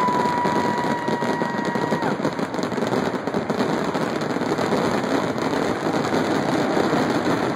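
Fireworks barrage: many shells bursting at once in dense, overlapping bangs and crackles. A steady whistle-like tone is held over them for about the first two seconds.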